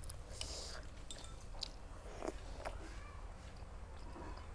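Close-up eating sounds: spoons clicking against bowls and plates, with soft slurping and chewing of papeda (sago porridge) and fish soup.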